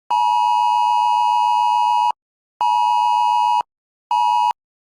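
Wireless Emergency Alert attention tone, the two-pitched phone alert beep. It holds for about two seconds, pauses half a second, sounds again for one second, then starts a third beep that cuts off after under half a second.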